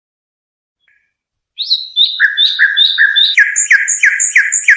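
A songbird singing the 'haddad' (blacksmith) song used as a tutoring recording for young birds: a rhythmic series of short, clipped, downward-sliding notes, about three a second, starting about a second and a half in, with a higher line of notes over them.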